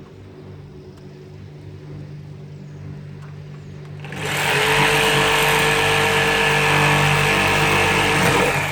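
An electric power saw starts about four seconds in and runs steadily at full speed for about four seconds, cutting out the window opening in the shed wall, then stops. Before it starts there is only a low steady hum.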